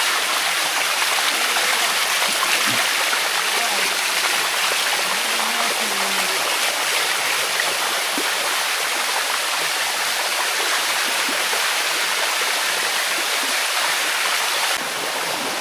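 Water rushing steadily down a limestone waterfall cascade, heard up close. It dips slightly in level just before the end.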